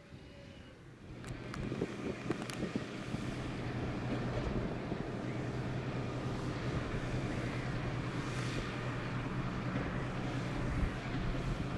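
Tractor engine running, growing louder from about a second in and then holding steady, with a few sharp knocks and rattles early on.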